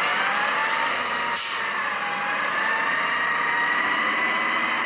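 Natural-gas garbage truck pulling away, its engine and drivetrain whine climbing slowly in pitch as it gathers speed. About a second and a half in there is a short hiss of air from its brakes.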